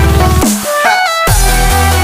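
Progressive house music: a fast repeating bass pattern cuts out about half a second in, a short synth line steps up in pitch in the gap, and heavy bass and beat come back in about a second and a quarter in.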